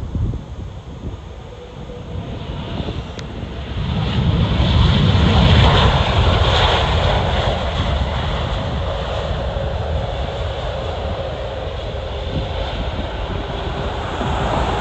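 Jet engines of a British Airways Airbus A380 rolling along the runway: a loud rumble that builds about four seconds in and then holds steady. There is a brief knock at the very start.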